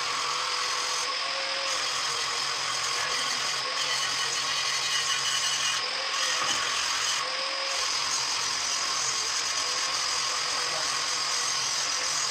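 A machine running steadily, an even mechanical noise with a faint constant whine.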